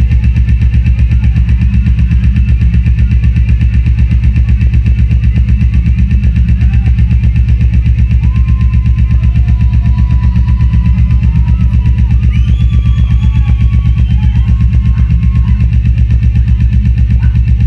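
Loud live electronic music from synthesizers: a heavy bass in a fast, even pulse, with a few short wavering synth tones over it in the middle.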